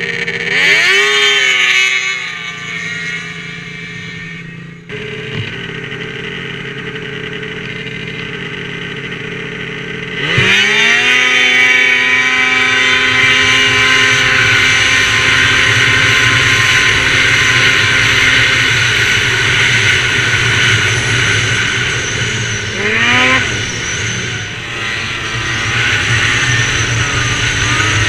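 Two-stroke Ski-Doo snowmobile engines at wide-open throttle. A short rev rises and falls near the start. About ten seconds in the engine pitch climbs sharply on a hard launch and then holds high and steady at speed. It dips and climbs again once near the end.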